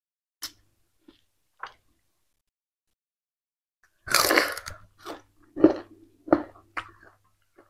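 Close-up chewing and biting of peeled purple sugarcane. A few faint crunches come first, then a loud crunching bite about four seconds in, followed by four or five sharp crunches.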